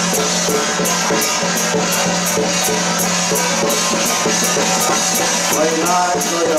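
Drum-and-cymbal procession music: sharp percussion strikes at about three to four a second over a steady low tone, with a wavering melody line coming in near the end.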